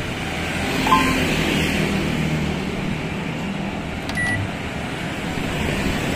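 Night-time street traffic: motorbikes and cars running along the road, with two short beeps, about a second in and about four seconds in.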